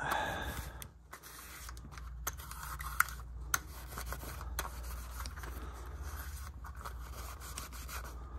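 A cloth rubbing and wiping over a plastic Sony Hi8 camcorder tape cassette, cleaning dust and grime off its shell. A few short clicks come from the handled cassette about two to three and a half seconds in.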